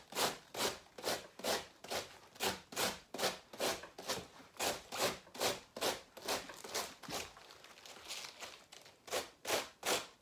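Handheld cabbage shredder slicing fresh white cabbage into thin shreds: a steady run of rasping strokes, about two and a half a second, which weaken for a moment near the end before a few more strong strokes.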